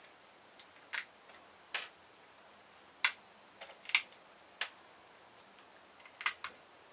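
Sharp, irregular clicks and snaps of a hand tool biting and prying at a small plastic-and-metal electronic part that will not come apart, about seven in all.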